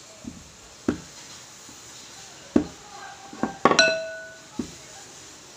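Wooden rolling pin and round rolling board knocking and clattering on a glass tabletop while dough is rolled out: about seven irregular sharp knocks, one of them ringing on as a glassy clink about two-thirds of the way through.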